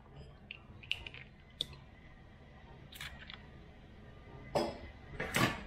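Scattered light clicks and knocks of a metal balloon whisk against a stainless steel mixing bowl, with two louder knocks near the end.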